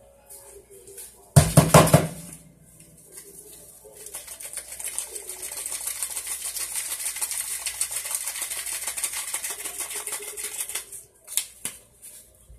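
Ground beef frying in a cast-iron skillet, sizzling and crackling. There is a loud clatter about a second and a half in, and the sizzle swells from about four seconds in until near the end, while seasoning is shaken over the meat.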